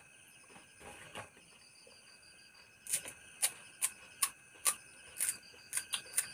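Crisp pani puri shells crunching: two soft crackles about a second in, then a run of about ten sharp crackles, two or three a second, from about three seconds in. A steady chorus of crickets goes on underneath.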